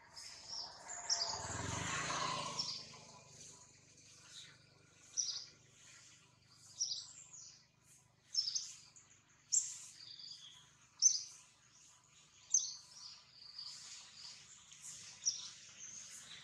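Birds chirping, short high calls repeating every second or two. A brief rushing noise passes about a second in.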